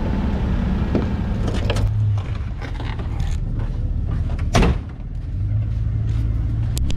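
Off-road vehicle engine idling with a steady low hum that fades back in the middle and returns near the end, with a few light knocks and one loud thump about four and a half seconds in.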